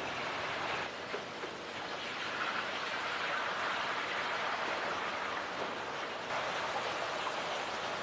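Steady hissing factory noise from a powered steel roller conveyor line carrying track shoe plates.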